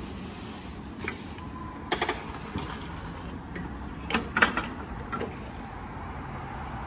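A steady low background hum with a handful of irregular knocks and clicks, the loudest pair about four seconds in.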